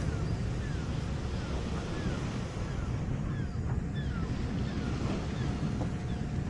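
Wind buffeting the microphone over the wash of small waves breaking on the shore. A string of faint, short, falling chirps sits above it.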